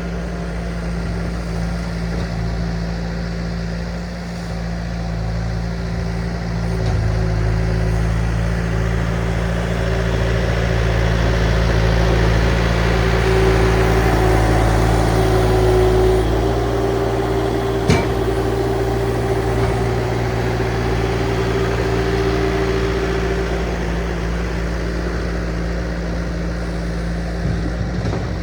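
Diesel engine of a compact construction machine running steadily, with a higher steady tone that grows louder in the middle, and one sharp click about eighteen seconds in.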